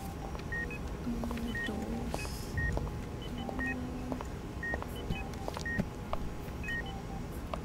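Hospital patient monitor beeping steadily, one short high beep about once a second, over low ward room noise.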